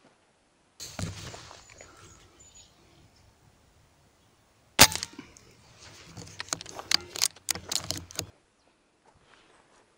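A single sharp shot from a scoped rifle about five seconds in, followed by about three seconds of quick clicks and knocks. Earlier, near the start, a short burst of rustling noise that fades away.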